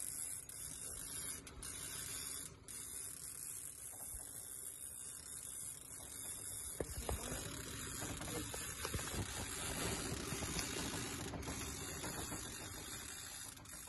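Fishing reels being cranked while fish pull against the bent rods, under a steady hiss.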